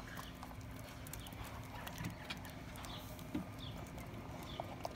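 Faint, scattered light taps and clicks of dogs' paws and claws on a concrete pool deck.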